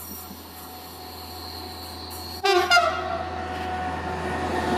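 Diesel shunting locomotive approaching, sounding its horn about halfway through: a sudden pitched blast, loudest at first and then held more softly, over the engine's running, which grows louder as it comes closer.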